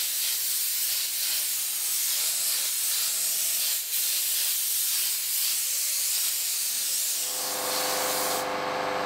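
Compressed-air paint spray gun hissing steadily as paint is sprayed onto the bus chassis, broken off once for a moment about four seconds in. Near the end a steady hum comes in and the hiss thins.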